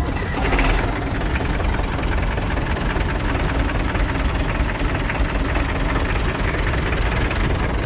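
1960 Fordson Power Major's 3.6-litre four-cylinder diesel engine running steadily, with a brief louder burst about half a second in.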